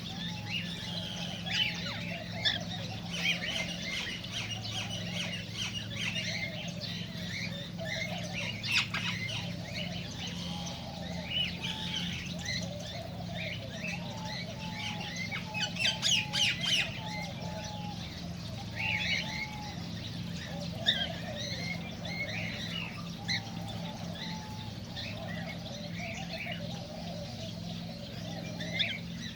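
Several cockatiels chirping and squawking, many short calls overlapping throughout, over a steady low hum.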